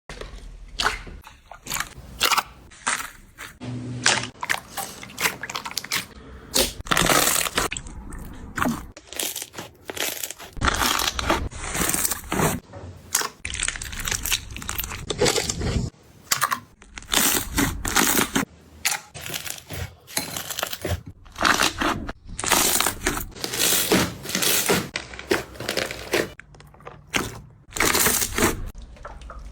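Slime being squeezed and pressed by hand, giving a dense, irregular run of crackling, crunching pops and squishes.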